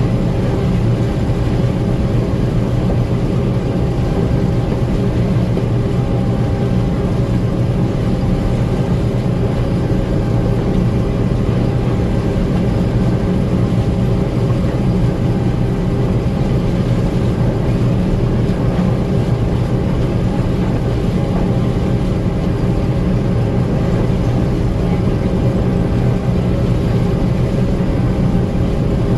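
Gleaner M2 combine running steadily: a constant engine and machinery drone with several steady low tones, unchanging throughout.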